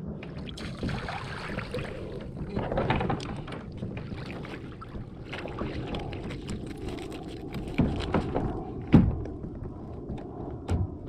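Fish being reeled in and netted beside a plastic sit-on-top kayak: water splashing and gear and landing net knocking against the hull, with a sharp knock about nine seconds in.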